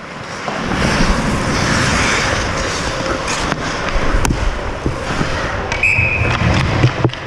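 Ice hockey play in front of the net: skates scraping and carving the ice, with sharp clacks of sticks and puck. A brief high tone sounds about six seconds in.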